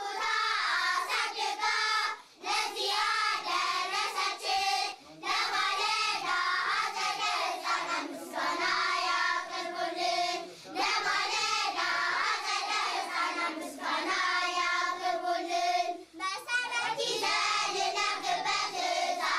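A group of children singing, phrase after phrase with short pauses between.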